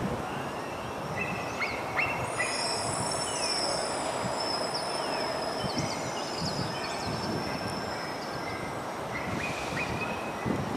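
Steady outdoor background noise with thin high-pitched tones that come and go, and a few short knocks.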